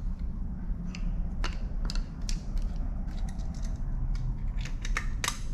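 Scattered small metallic clicks and taps of hand tools working a bolt and screw loose, over a steady low rumble.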